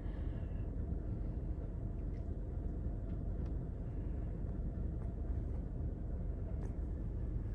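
Steady low rumble of a car idling, heard from inside the cabin, with a few faint clicks scattered through it.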